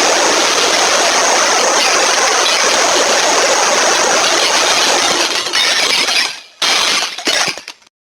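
A dense, loud pile-up of cartoon sound effects with a crashing, glass-breaking character. It breaks up into short choppy bursts near the end and then cuts off.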